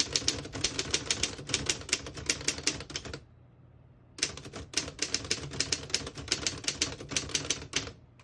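Typebars of a 1936 Underwood No. 12 manual typewriter striking the platen in quick succession as a sentence is typed, about seven strikes a second. There are two runs with a pause of about a second between them.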